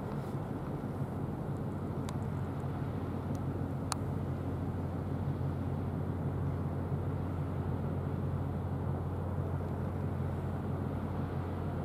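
Steady low engine drone of a ship under way, with a faint click about two seconds in and another about four seconds in.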